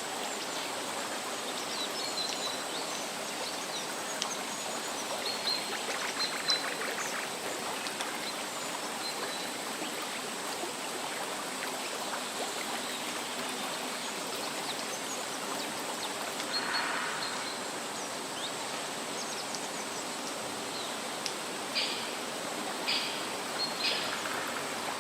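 Waterfall rushing steadily, with a few brief high bird chirps and some short sharp chirps near the end.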